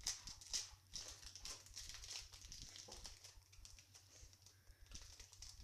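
Foil wrapper of a Pokémon booster pack crinkling and tearing as it is opened by hand: a faint, irregular run of quick crackles, the sharpest near the start.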